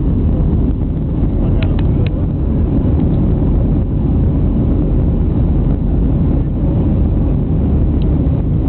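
Cabin noise inside a Boeing 737-800 climbing after takeoff: a loud, steady low rumble from its CFM56 jet engines and the airflow, with a few faint clicks about two seconds in.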